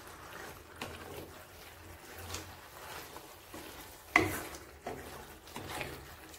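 A spatula stirring chicken pieces in a thick masala in a frying pan: soft scrapes and clacks against the pan, with one sharper knock about four seconds in.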